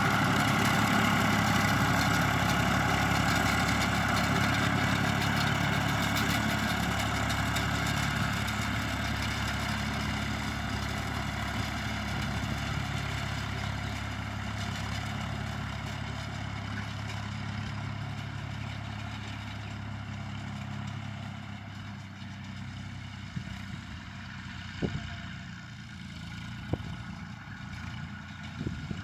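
Massey Ferguson 135 tractor engine running at a steady speed, growing fainter as the tractor drives away. A few sharp clicks near the end.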